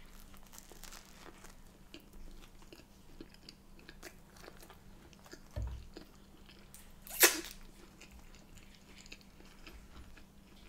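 Close-up mouth sounds of someone biting and chewing a crusty bread-roll sandwich: wet chewing with small crunches and clicks. There is a short low thump about five and a half seconds in, and one sharp, loud crackle a little after seven seconds.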